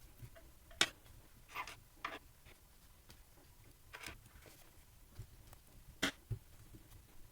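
Small clicks and taps, about five over several seconds, from screws and an Allen wrench being worked into the plates of an SLA 3D printer's FEP film frame.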